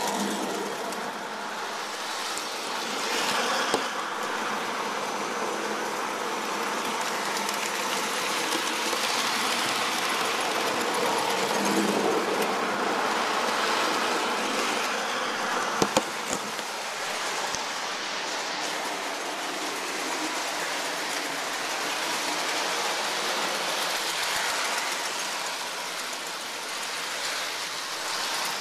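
Lionel O-gauge model train running steadily past on three-rail track, a continuous rolling noise of motor and wheels, with two sharp clicks.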